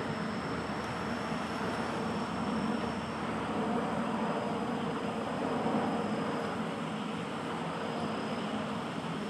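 Steady background noise, a low rumble with a hiss, and a faint high whine that fades in and out.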